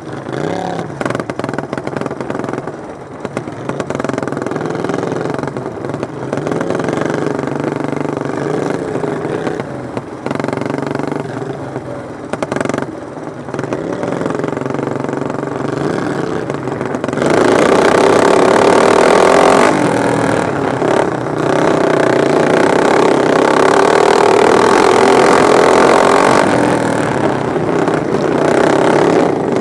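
Several racing lawn mowers running together at full throttle, their small engines revving up and down as the pack goes around the track. The engines grow much louder a little past halfway and stay loud until near the end.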